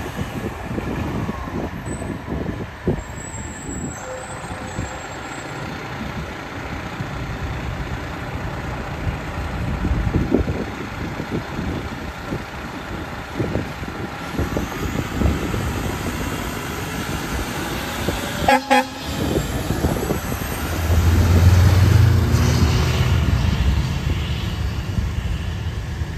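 Fire department aerial ladder truck's diesel engine running as it drives past, with a short horn toot about two-thirds of the way through. The engine rumble grows louder near the end as the truck comes close and pulls away.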